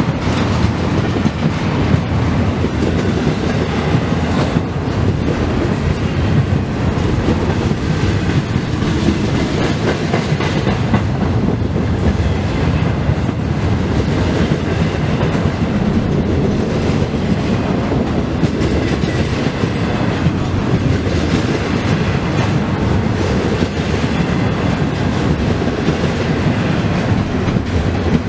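Freight train of double-stack container well cars rolling steadily past: a continuous rumble of steel wheels on the rails with clickety-clack over the joints.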